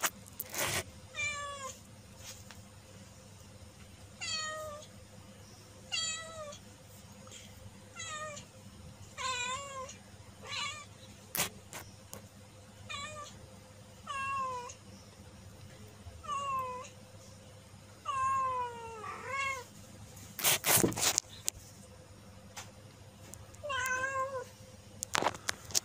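Domestic cat meowing repeatedly: about a dozen short meows, each falling in pitch, one every second or two. A brief loud clatter about three-quarters of the way through.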